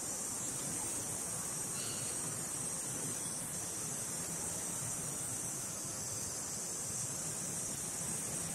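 Steady, high-pitched drone of insects in the trees, running evenly with no breaks.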